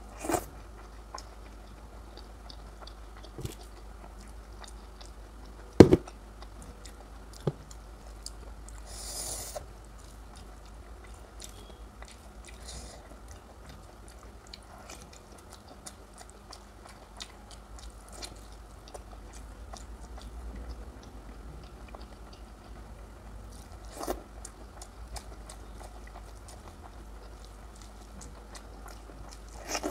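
Close-miked eating sounds: a person chewing and biting mouthfuls of food, with scattered small clicks and a sharp knock about six seconds in, over a low steady hum.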